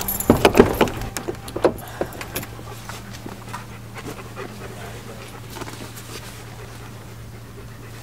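German Shepherd dog panting in quick, loud breaths during the first couple of seconds, then a low steady hum.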